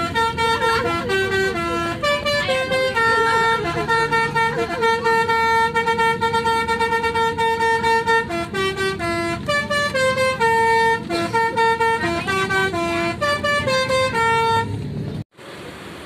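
Indonesian 'telolet' bus horn playing a quick melody of held, stepping notes over the bus's running noise, stopping abruptly near the end.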